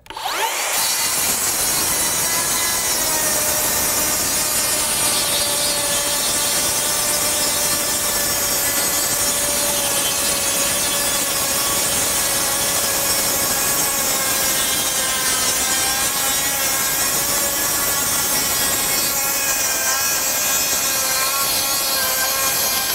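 Makita 40V XGT brushless rear-handle 7-1/4-inch circular saw ripping lengthwise down a long board in one continuous cut. The motor's steady whine runs under the blade's hiss through the wood and sinks a little in pitch as the saw slows slightly under the sustained load. It stops just before the end.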